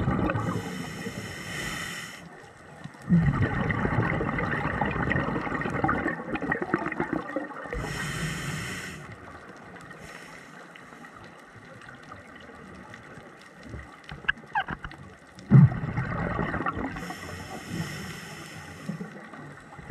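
Underwater bubbling and gurgling in two long bursts, with shorter high hisses in between: the rhythm of a scuba diver breathing through a regulator, exhaled bubbles alternating with the hiss of each breath in.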